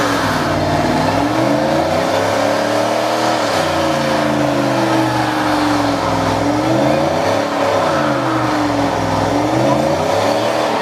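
Car engine revving hard during a burnout, its pitch rising and falling over and over as the rear tyres spin in place.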